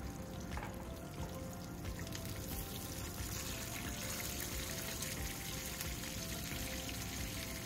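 Fish steaks sizzling steadily as they shallow-fry in hot mustard oil, with soft background music.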